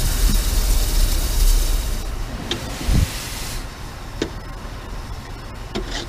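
Steam hissing from a steam locomotive, fading away about two to three seconds in, over a steady low rumble. A few short sharp clinks follow, typical of a shovel scraping dirt out of a steel side-dump car.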